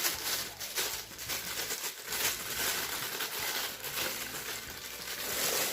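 Toy packaging crinkling and rustling as it is handled, a dense, irregular crackle.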